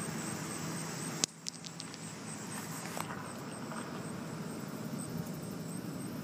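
Steady outdoor background hiss. A sharp click comes a little over a second in, then a few faint ticks.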